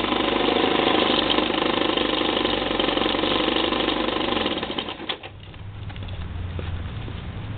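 Toro S200 snowblower's two-stroke engine running loudly, then dropping away abruptly about five seconds in, leaving a quieter low hum. Its freshly rebuilt carburetor still needs a little adjustment, in the owner's view.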